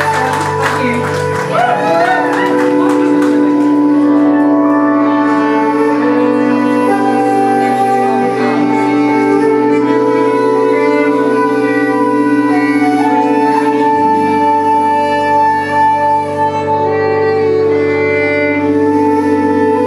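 Live folk music: a slow tune on fiddle, with some woodwind, over held low chords that change twice.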